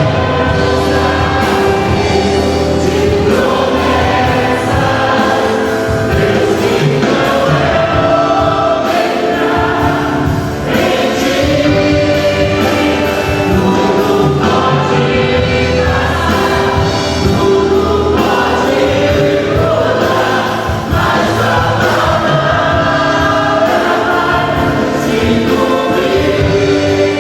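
Choir singing gospel worship music with instrumental accompaniment.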